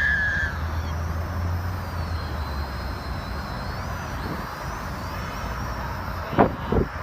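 Steady hissing background, with two short, loud honks about six and a half seconds in, typical of geese.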